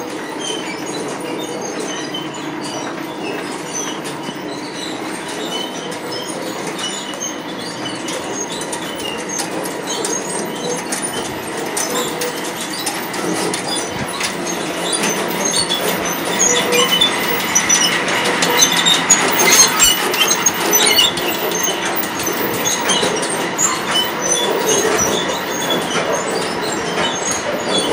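Chain conveyors of a Storti log sorting line running: a steady metallic rattle full of small clicks, with high squeals, growing louder about halfway through.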